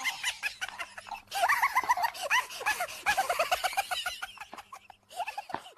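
A crowd of birds calling at once: many short, overlapping calls that rise and fall, several a second. They get louder just past a second in and stop abruptly at the end.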